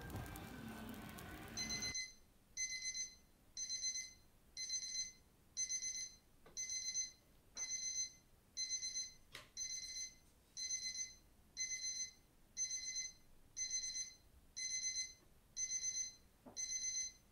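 Electronic alarm beeping: a short high beep repeating evenly about every 0.8 seconds, starting about two seconds in after a steady hiss.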